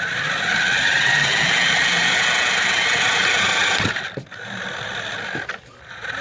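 Radio-controlled car's motor and drivetrain whirring with a high whine as it drives, cutting out twice as the throttle is let off, with a few light knocks around the first cut.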